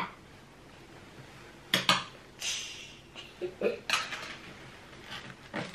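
Small lab items (plastic stirrers, measuring spoons, a petri dish) clicking and clattering as they are handled and set down on a wooden tabletop, in a handful of separate light knocks.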